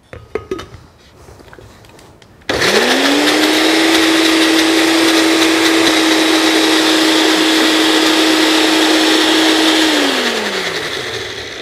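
Glass-jar countertop blender puréeing a thick mayonnaise-and-olive sauce: after a few light clicks as the lid goes on, the motor starts about two and a half seconds in, spins up quickly to a steady high speed, and near the end is switched off, its pitch falling as it winds down.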